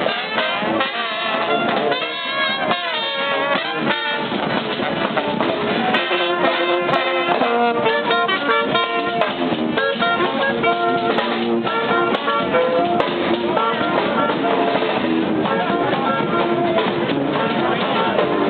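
Brass band playing a lively tune, with trumpets and trombones carrying held notes over drums.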